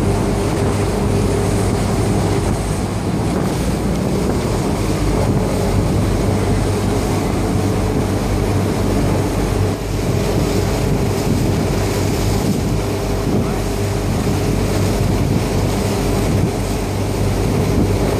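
Boat engine running at a steady speed, a constant low drone, with wind buffeting the microphone.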